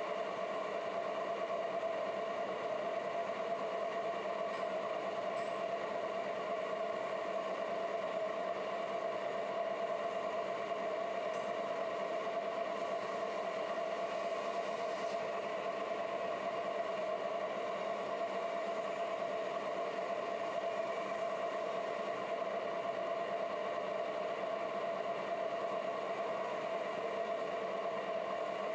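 Large engine lathe running steadily while turning a big metal wheel: an even mechanical drone with a fixed whine that does not change.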